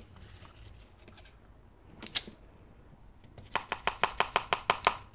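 Plastic measuring spoon clicking against a plastic cup while latex paint is spooned out: one click about 2 seconds in, then a quick run of about a dozen light taps near the end as the paint is knocked off the spoon.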